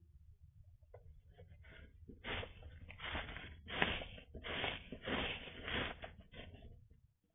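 Straw bedding rustling and crackling as an opossum burrows and pushes through it right at the microphone: a run of short scratchy bursts that grows louder about two seconds in.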